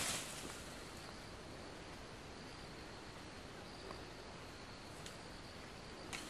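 Faint outdoor ambience: a thin, high insect hum that comes and goes over a steady hiss, with a brief rustle at the start and a few faint ticks.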